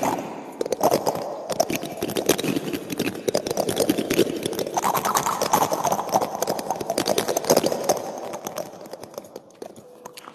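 Metal teaspoon scraping and flicking across cactus spines: a dense run of small scratchy clicks that grows fainter over the last couple of seconds.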